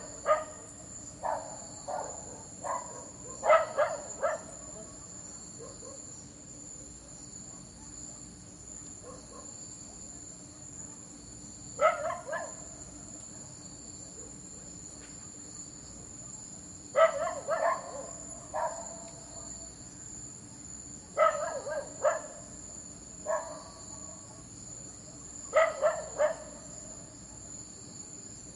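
A dog barking in short bouts every few seconds over a steady, high chorus of crickets.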